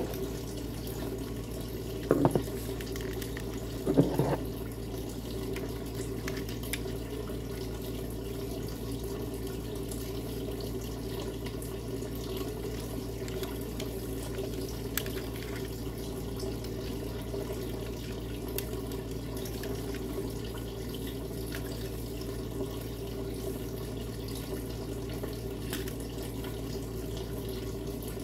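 Steady rushing background noise like running water, under faint clicks of a plastic phone holder and its packaging being handled. Two brief louder knocks come about two and four seconds in.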